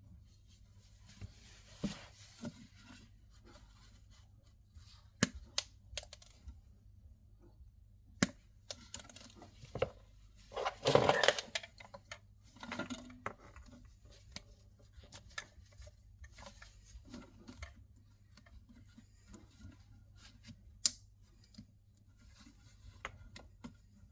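Wire cutters snipping the cores of electrical cable to shorten them: a few sharp clicks of cutting among small handling ticks, with a louder scraping rustle lasting about a second a little before halfway.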